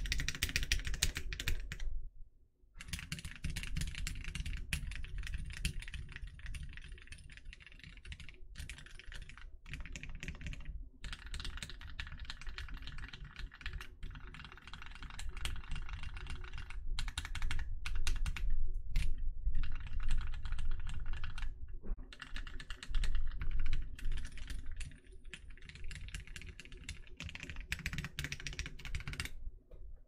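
Continuous rapid typing on a C21 numpad mechanical keyboard fitted with vintage Wyse Cherry MX Black linear switches, lubed and filmed, in an aluminium plate: a dense run of key presses and clacks, with a short pause about two seconds in and a few brief gaps later.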